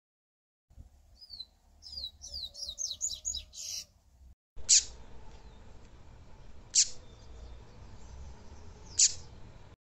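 Yellow-bellied seedeater (papa-capim) singing: a quick run of high, downslurred notes that speeds up, then after a short break three loud, sharp downslurred notes about two seconds apart.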